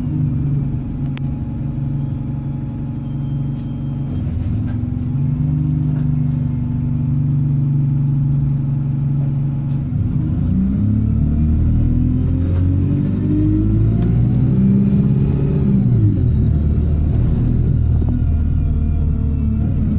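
Alexander Dennis Enviro 200 bus's diesel engine running at a steady note, then accelerating from about ten seconds in, its pitch climbing with a high turbo whine rising above it, and dropping back about six seconds later.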